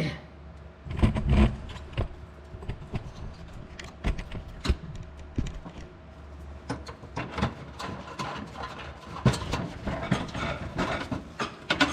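Irregular clicks, taps and light rattles of hand work on a pickup truck's plastic underbody cover and its clip-retained screws, over a steady low hum.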